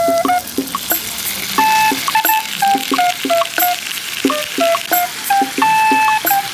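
Hamburger steak sizzling on a hot iron serving plate after sauce is poured over it, the hiss swelling about a second in and easing near the end. A light background tune of recorder notes over a plucked beat plays throughout.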